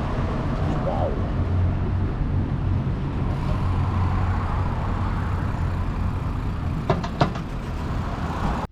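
Road traffic going by, a steady low rumble, with two sharp clicks about seven seconds in.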